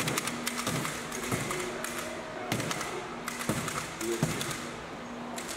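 Workshop bench work: irregular taps, clicks and thuds of hand tools and material being handled, over a steady hum.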